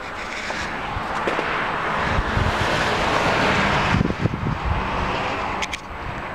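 A passing vehicle: its noise swells to a peak about three to four seconds in, with a low rumble, then fades.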